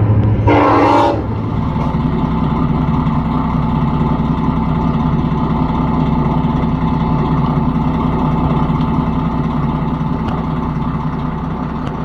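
A motor vehicle running steadily, its engine and road noise an even low rumble, after music cuts off about a second in.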